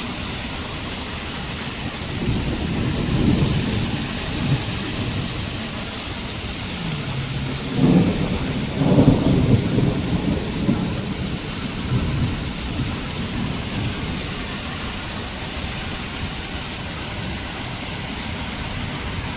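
Thunder rumbling over steady heavy rain: a first roll a couple of seconds in, then a louder one about eight seconds in that dies away by about twelve seconds, leaving the rain alone.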